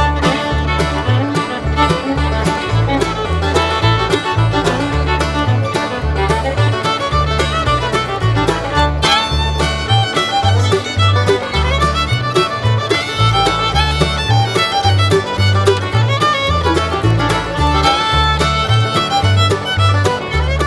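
Upbeat bluegrass-style music with fiddle over a steady bass beat.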